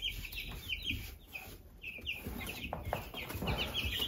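Chickens clucking in the background, a steady run of short, repeated calls.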